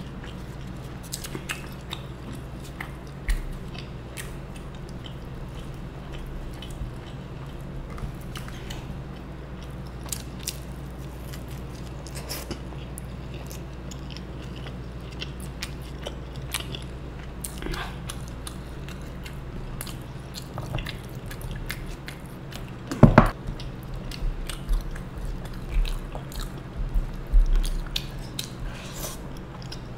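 Close-miked chewing and biting of roti and rajma with rice, with small wet mouth clicks throughout over a low steady hum. About three quarters of the way through comes one sharp loud knock, followed by several duller bumps as food is handled.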